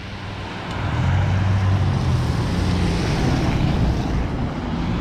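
Cars driving past on a wet, slushy road: tyre hiss that swells over the first second and then holds, with wind buffeting the microphone.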